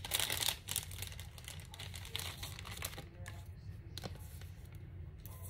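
Paper rustling and crinkling as small paper craft pieces are handled, loudest in the first second, with a couple of light taps about three and four seconds in as pieces are set down on a paper tag.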